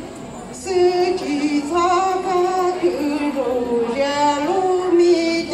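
A woman singing a melody in held notes that step up and down in pitch, with short breaths between phrases.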